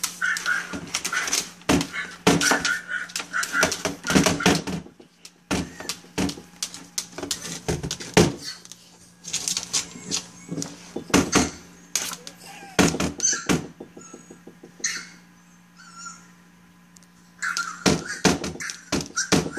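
A dog's claws scratching and tapping at a laptop screen and desk in rapid clusters, with high-pitched puppy cries playing through the laptop's speakers and a steady low hum underneath.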